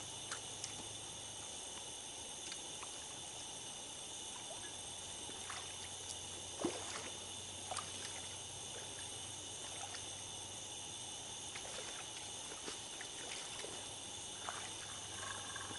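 Steady high chorus of night insects, with scattered faint clicks and water splashes while a hooked catfish is played and reeled in on a spinning rod.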